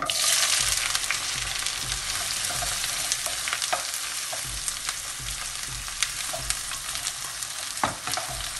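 Chopped onion dropped into hot oil in a nonstick wok: a sudden burst of sizzling as it hits the oil, then steady frying while it is stirred with a wooden spatula that knocks against the pan a few times.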